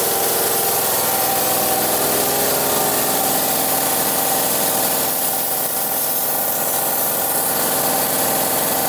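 A shop machine's motor running steadily: a hum of several even tones with a hiss of air over it.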